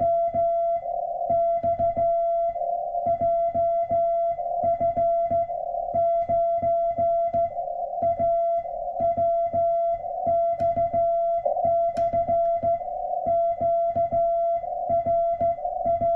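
Morse code sent by hand on a straight key: a keyed tone of dots and dashes in an uneven hand rhythm, with the key's mechanical clicks under each element. A steady unbroken tone continues underneath.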